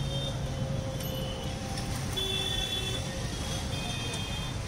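Busy street traffic: motorcycles and scooters running as they pass close by, a steady rumble with faint high-pitched tones over it around the middle.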